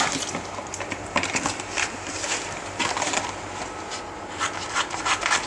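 Rustling and crinkling handling noise, a dozen or so short irregular scrapes, as dressing materials such as gauze and adhesive tape are handled, over a low steady hum.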